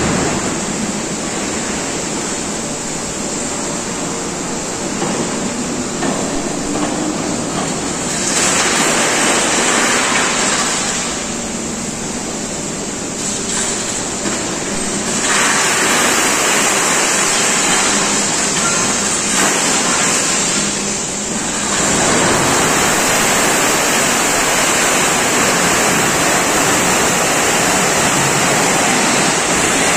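Loose scrap metal sliding and pouring out of a shipping container that an overhead crane is tipping: a steady rushing noise that grows louder in steps, about 8, 15 and 22 seconds in.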